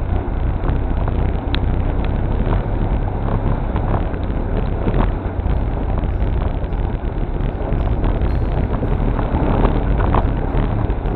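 A 4WD creeping through wet grass and shallow water: a steady low rumble of engine, tyres and wind on the microphone, with scattered light knocks.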